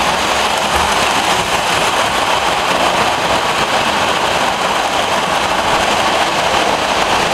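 Lionel model trains running on three-rail track: a steady, loud rolling rumble of wheels and motors.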